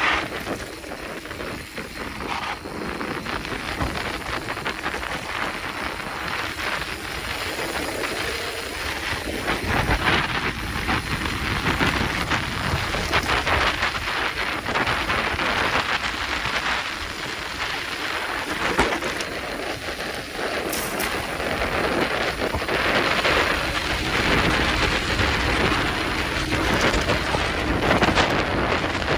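Mountain bike going down a dirt trail: wind rushing over the camera microphone, mixed with tyres crunching on dirt and the bike rattling over bumps.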